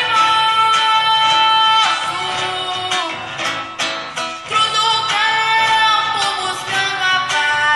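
A young girl sings a gaúcho regional song through a PA, accompanied by acoustic guitar, holding a long note in the first couple of seconds before moving on to shorter, gliding notes.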